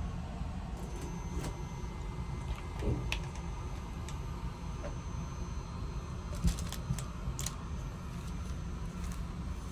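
Steady low rumble of an Airbus A380 cabin's air-conditioning on the ground, with light plastic clicks and taps as a lavatory drawer of packaged toiletries is handled; a sharper knock comes about six and a half seconds in.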